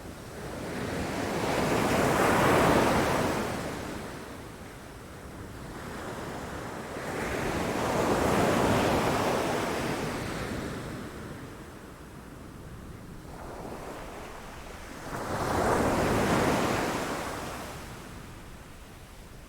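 Ocean waves crashing against rocks: three waves surge up and fall away in turn, one near the start, one near the middle and one near the end, over a steady wash of surf.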